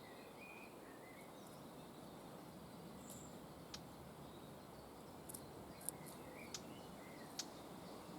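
Faint outdoor ambience with soft, short bird chirps and several sharp ticks in the second half.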